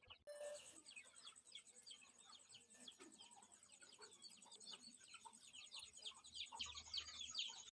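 Faint, busy chirping of small birds or chicks, many short quick calls overlapping, over a steady high thin whine.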